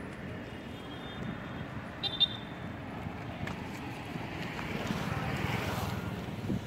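Street traffic noise with wind buffeting the microphone, swelling as a vehicle passes near the end, with a brief high-pitched sound about two seconds in.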